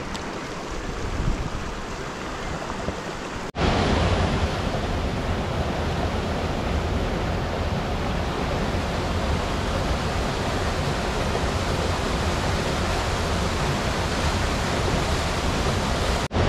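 Rushing water of a mountain creek, a steady even rush. About three and a half seconds in it cuts to a louder, fuller rush from a small cascade pouring between boulders close by.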